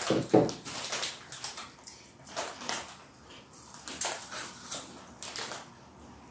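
Irregular crackling of a plastic snack bag being handled and of Cheetos peanut corn puffs being crunched, loudest in the first half second and then quieter.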